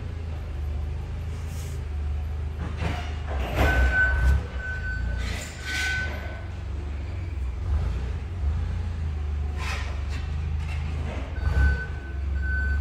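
A vehicle's reversing alarm beeps in short high pulses, about two a second, in one spell in the middle and again near the end, over a steady low rumble. A few brief rustles and knocks cut in.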